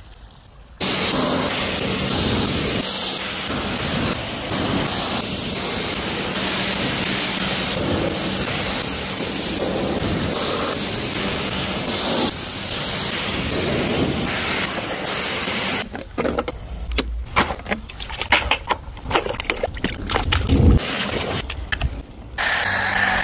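Pressure washer jet spraying water onto a truck's bodywork, a loud steady hiss that starts about a second in. In the last third it breaks into many short bursts.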